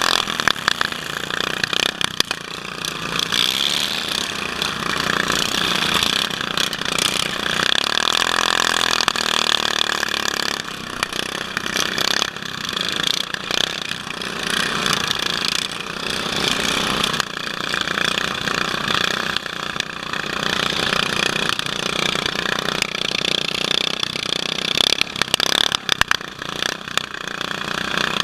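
Several racing lawn tractor engines running hard at once, the nearest one revving up and down about eight to ten seconds in, with repeated knocks and rattles from the mowers jolting over rough dirt and bumping one another.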